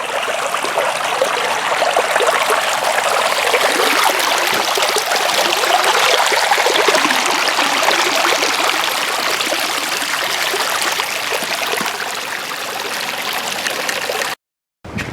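Running water of a small stream, a steady, dense babbling. It cuts off abruptly near the end.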